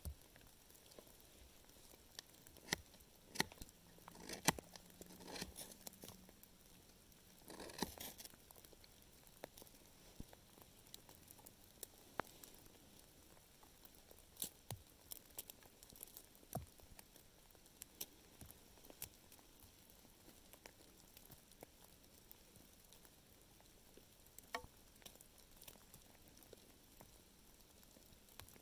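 Faint, scattered ticks and scrapes of a knife and hands working dry wood shavings and tinder, with a short rustling scrape about eight seconds in.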